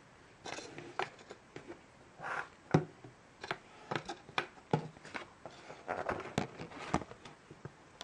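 Handling noise as a small glass sample vial, a plastic shower-gel bottle and a cardboard box are picked up and set down on a wooden tabletop: irregular taps and clicks with a few short rustles, the sharpest knock about three seconds in.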